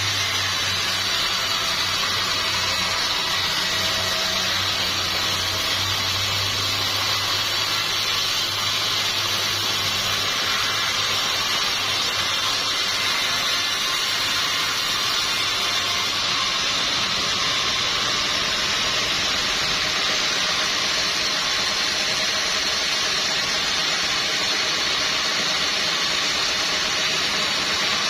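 Sawmill machinery running steadily, a constant rushing noise with a low hum underneath that drops out about two-thirds of the way through.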